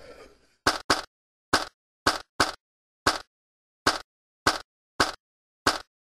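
Row of dominoes toppling, each block knocking into the next: about ten short, sharp knocks at uneven intervals, with dead silence between them.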